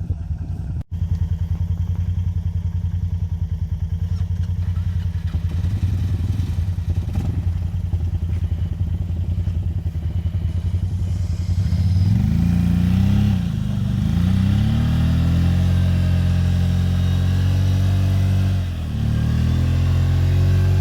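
BRP ATV engine running steadily, then revved up and down several times from about twelve seconds in, with a short drop near the end, as the quad is worked to get free of mud.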